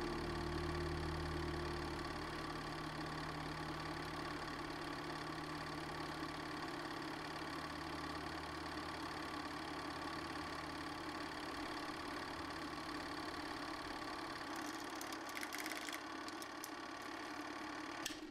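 Film projector running with a steady mechanical whir, a few clicks near the end, then cutting off as the reel ends.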